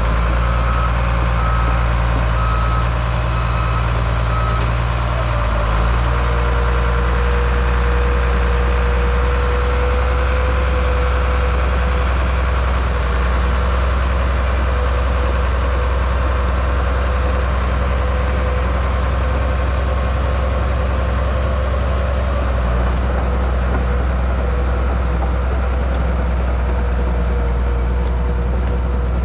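Crawler tractor's diesel engine running steadily under load while towing a motor grader, with a backup alarm beeping for the first few seconds. A steady whine joins about six seconds in and holds.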